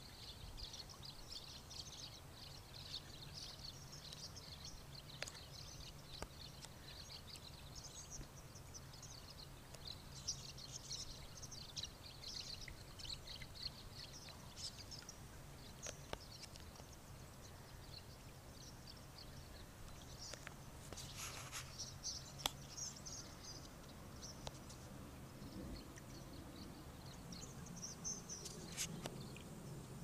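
A large flock of small birds calling together: a dense, continuous chatter of short high chirps, faint, over a low steady hum.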